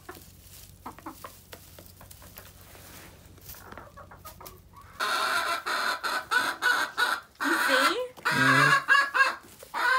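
Backyard hens clucking. The first half is quiet with a few faint taps; about halfway in, loud, repeated clucking calls start and carry on with short breaks.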